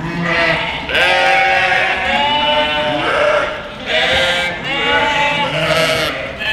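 A large flock of sheep bleating continuously, many calls overlapping one another.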